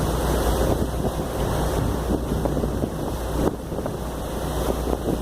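Wind buffeting the microphone on a moving harbour ferry, over the steady low rumble of the ferry's engine and the wash of water. The noise briefly drops about three and a half seconds in.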